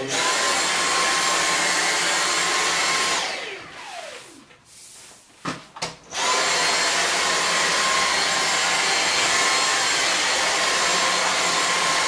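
Dyson V6 Fluffy cordless stick vacuum running with a steady high whine while its soft-roller head vacuums a hard floor. About three seconds in the motor stops and its whine winds down to quiet, and a couple of clicks follow. About six seconds in it starts up again and runs steadily.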